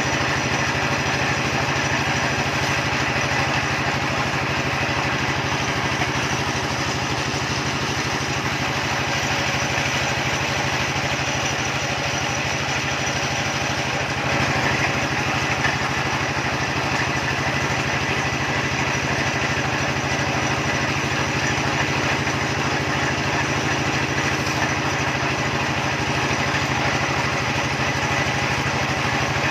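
Small engine powering a well-drilling rig, running steadily at an even speed.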